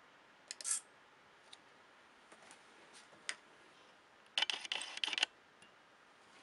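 A few short clicks, then a hobby servo on a pen plotter's pen lift moving the brush pen, heard as a buzzing burst just under a second long about four and a half seconds in.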